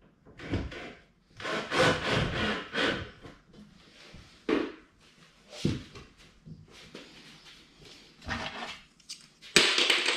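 Irregular scraping and rubbing against wooden wardrobe panels with a few knocks, and one sharp, loud knock near the end.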